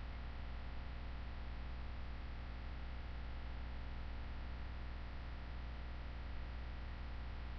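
Steady low electrical hum with an even hiss over it, unchanging throughout and with no distinct events.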